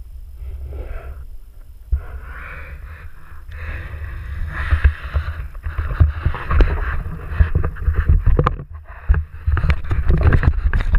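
Water splashing and sloshing against an action camera's waterproof housing as it moves through the water and comes up to the surface, with many sharp knocks of handling. It gets louder about two seconds in and busier from about four seconds on.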